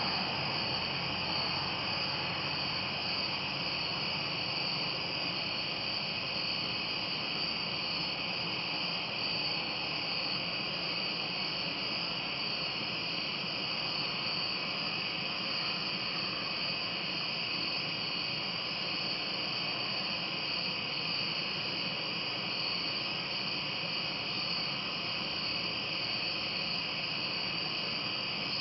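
Steady chorus of night-singing insects: a continuous high trill with no breaks, over a background hiss.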